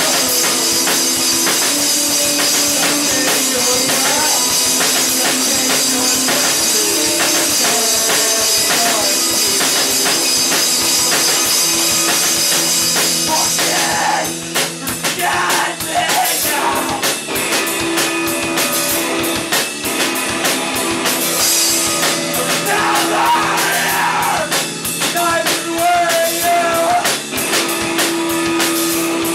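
A live rock band playing a song with drums, guitars and singing. Heavy cymbal wash fills roughly the first half; about halfway through it drops away and the drumming becomes choppier, with separate hits.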